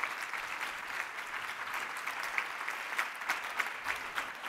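Audience applauding, a steady spread of many hand claps.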